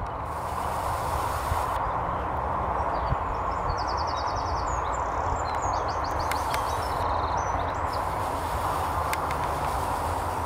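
Steady rushing outdoor noise with a low, uneven rumble, over which a small bird sings short high trills a few times in the middle.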